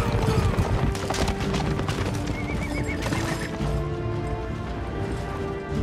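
Horses whinnying and hooves clopping over sustained music with long held notes.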